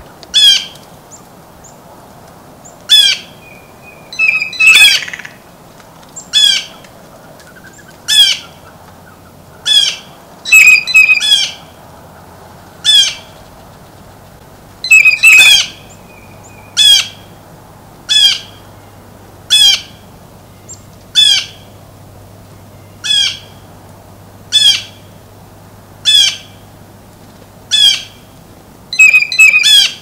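Blue jay giving harsh squawking calls, one every one and a half to two seconds, sometimes two or three in quick succession.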